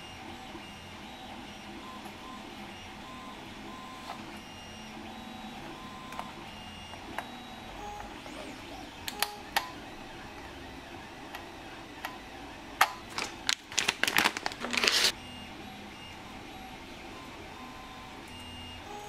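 Handling noise from the parts of an RC truck kit and its transmitter: a few sharp clicks, then a dense burst of clicking and rattling about thirteen to fifteen seconds in, over a faint bed of soft, short tones.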